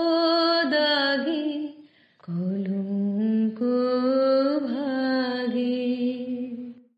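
A solo voice singing long, drawn-out notes without clear words, in two phrases with a short break about two seconds in; the second phrase is lower and held for several seconds before stopping at the very end.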